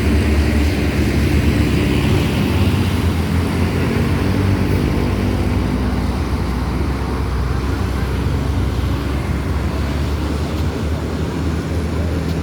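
A large bus engine running close by, a heavy steady low rumble. Its pitched engine hum is clearer in the first few seconds and fades into a broader rumble after about six seconds.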